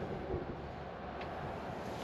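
Steady background rumble with wind noise on the microphone, and one faint metallic click about a second in as the ball joint press is fitted against the control arm.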